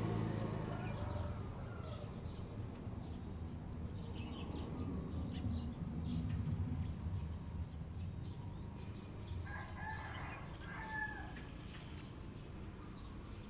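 A rooster crows once, about ten seconds in, over a steady low hum.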